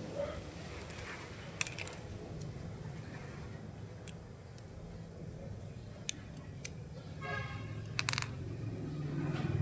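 Light metallic clinks and taps of small metal parts knocking together, with one brief ringing ping a little after seven seconds in, over a steady low hum.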